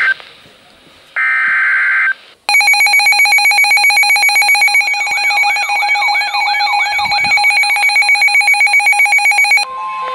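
Emergency Alert System header data bursts: harsh, buzzy digital squawks, one ending at the start and another about a second in. About two and a half seconds in, a loud EAS attention tone begins: a steady, pulsing alarm. It stops shortly before the end and gives way to a softer steady tone.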